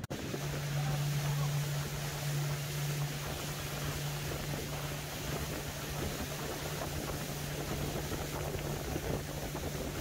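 Motor of a small tour boat running steadily under way on a lake, a low even drone over the rush of wind and water.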